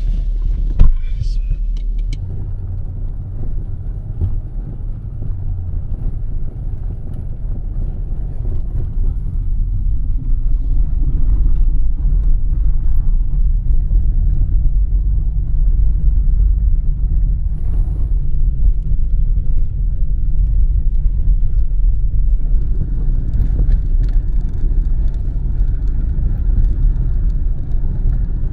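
Steady low rumble of a car driving over a rough, snow-covered dirt track, heard inside the cabin, with a sharp knock about a second in. It grows somewhat louder from about ten seconds on.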